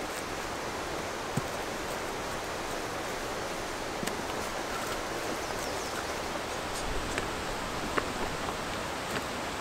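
Steady outdoor rushing noise, like running water or wind in the trees, with a few faint clicks scattered through it.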